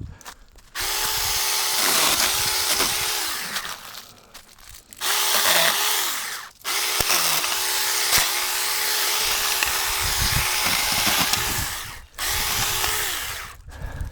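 Saker handheld battery mini chainsaw running in four bursts of a few seconds each. Its motor whine dips in pitch several times as the chain bogs into wood while cutting branches.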